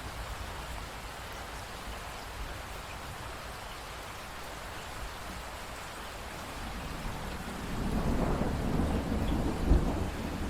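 Steady rain hiss, joined about three-quarters of the way through by a low rumble of thunder that swells and peaks near the end.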